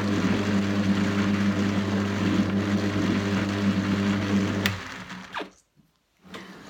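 Electric drum carder running with a steady motor hum and the whirr of its drums as it cards wool. About three-quarters of the way in, a click of the switch and the motor stops.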